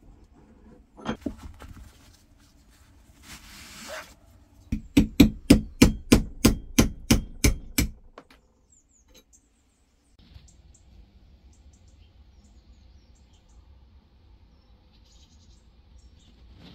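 A hammer striking a steel punch about fifteen times in quick succession, roughly five blows a second for about three seconds, driving the old broken wooden handle stub out of the eye of a hammer head clamped in a vise. Before the blows come a few knocks and a short scrape as the head is set in the vise.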